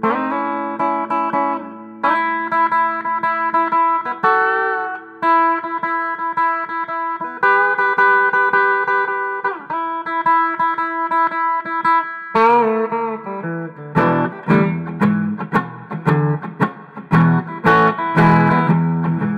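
G&L Comanche electric guitar played through an amplifier: ringing single notes and held chords, then, from about two-thirds of the way in, quick choppy strummed chords.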